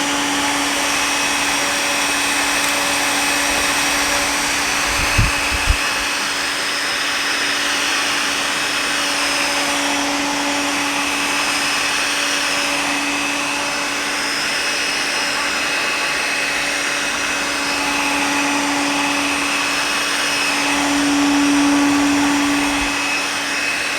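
Hoover Gator handheld vacuum cleaner running, a steady motor whine over a rush of air. Two short bumps come about five seconds in, and it gets a little louder near the end.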